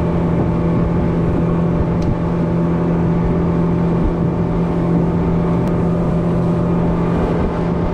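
Mercury F100 four-stroke outboard running steadily under way, driving a small aluminium fishing boat across open water, its even engine tone over the rush of water past the hull.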